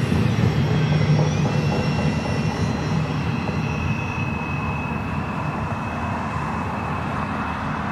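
Tail end of a BNSF double-stack container freight train rolling past and away: the steady rumble of wheels on rail fading slowly, with a thin, steady high whine running through it.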